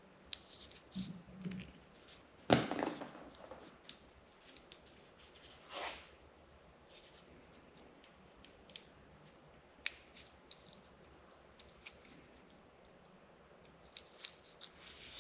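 Piece of 3/8-inch heat-shrink tubing being cut and fitted over a wire bundle: a loud sharp snip about two and a half seconds in, a softer one near six seconds, and scattered small clicks and rustles of handling.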